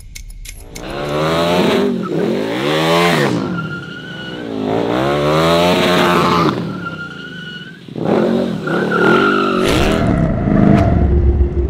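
KTM motorcycle engine revving hard in three swells, its pitch climbing and falling each time, with tyre squeal as the bike slides through the turns.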